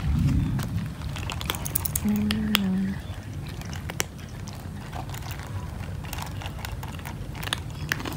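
A group of cats crunching dry kibble: a scatter of sharp, irregular crunches and clicks. A low rumble comes in the first half second, and a short, steady low hum lasts just under a second about two seconds in.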